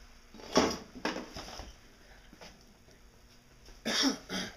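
Things being moved about and set down: a burst of clattering knocks and scrapes about half a second in, and another near the end with a short falling squeak.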